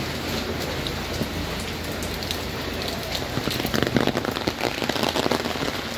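Steady heavy rain falling on wet pavement. About halfway through, louder, closer drops start spattering.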